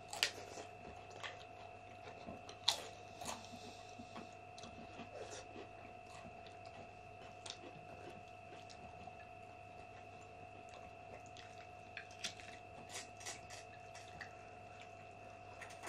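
Close eating sounds: chewing and biting with scattered crunches and small clicks, the sharpest about a quarter second in and near three seconds. A faint steady whine runs underneath.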